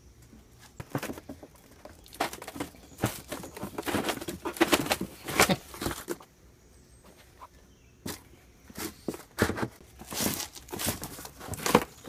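A cardboard shipping box and a stack of stiff wax-coated plastic beehive foundation sheets being handled: irregular rustling, scraping and flapping noises. They pause for about two seconds halfway through, then start again.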